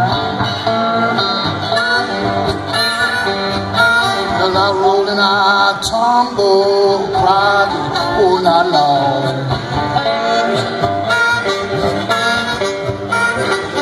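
Live acoustic blues: a resonator guitar played slide-style, with a bending, wavering melody line above the guitar.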